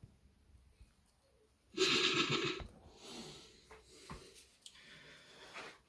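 A short, loud breathy puff of air about two seconds in, like a person blowing out, followed by faint rustling and a few small clicks.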